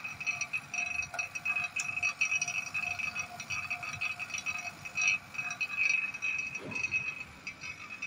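Value oil-sealed rotary vane vacuum pump running steadily, a constant high whine over an uneven chatter, while it pulls a vacuum on a refrigeration system to draw out moisture.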